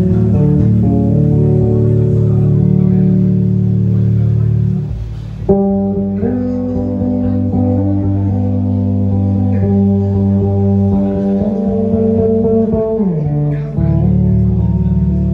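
Amplified electric bass guitar played solo, sustaining ringing notes and chords. The sound dips briefly just before five seconds in, a sharply struck note comes in after it, and a note slides down in pitch near the end.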